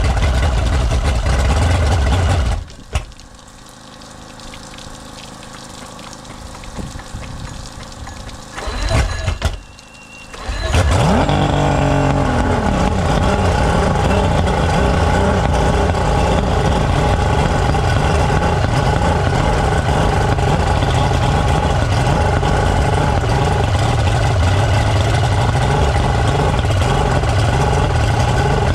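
Outboard motor running, then shut off about two and a half seconds in; after several quieter seconds it is cranked and catches again about eleven seconds in, then runs steadily at idle.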